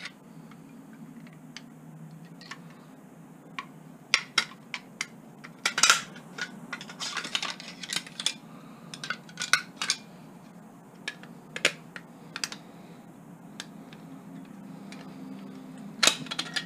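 Irregular small metallic clicks and taps as a screwdriver and pliers work on a metal kitchen tap, loosening its parts, with the busiest clicking in the middle. A steady low hum runs underneath.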